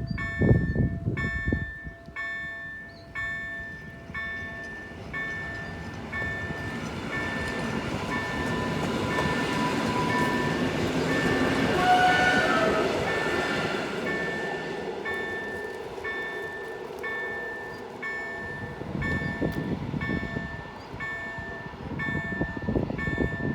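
Level-crossing warning bell (EDG-2005) striking in a steady, even rhythm throughout, while an EN57AL electric multiple unit passes over the crossing. The train's rush builds to a peak about halfway through, then fades away.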